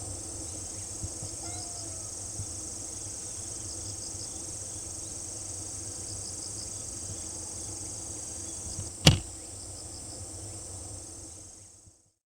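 Crickets trilling in a steady high-pitched chorus, with a cricket's short pulsed chirps repeating about once a second. A single sharp knock comes about nine seconds in, and the sound fades out near the end.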